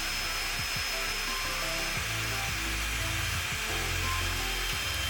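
Background music with a steady beat and bass, over a power tool running steadily with a high whine.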